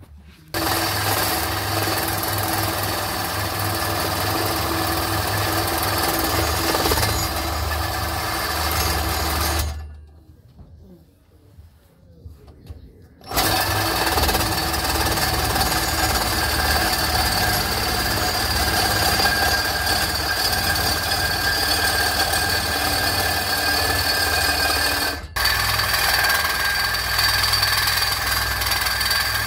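Cordless reciprocating saw cutting through a steel exhaust pipe, running steadily. The cutting stops for about three seconds partway through, then starts again, with one brief break near the end.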